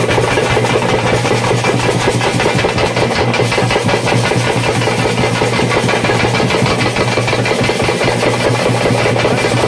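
Loud, continuous festival music driven by rapid, dense drumming, with a steady low hum beneath it.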